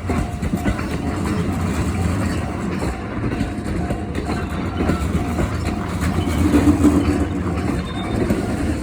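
Japanese railway level-crossing alarm ringing its repeated electronic 'kan-kan' about twice a second, over the steady low rumble of a train passing over the crossing.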